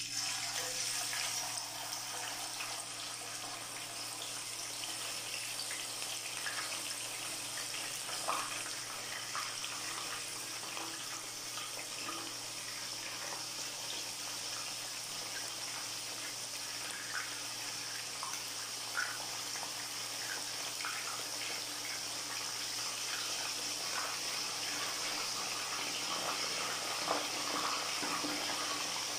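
Marinated chicken pieces sizzling as they fry in hot cooking oil in a pan: a steady hiss that starts suddenly as the first piece goes in, dotted with small pops and crackles.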